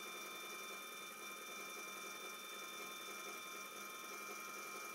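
Small electric motor of a turntable running steadily: a faint, even whine of several high tones over a low hum.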